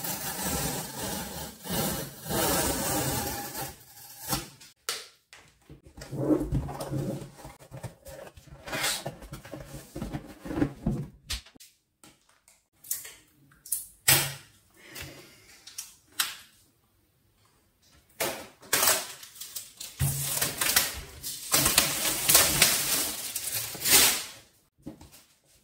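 Cardboard shipping box being opened by hand: packing tape peeled and torn and cardboard flaps rubbed, with a steady rustle for the first few seconds, then irregular scrapes, rubs and taps as the white retail box is slid out and handled, with more rustling near the end.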